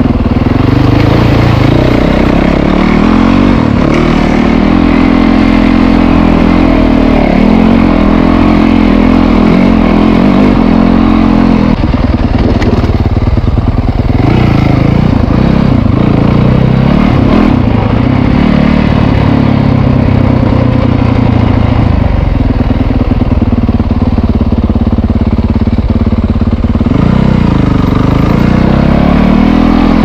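Dirt bike engine running under load as it is ridden along a rough track, its revs rising and falling constantly with the throttle.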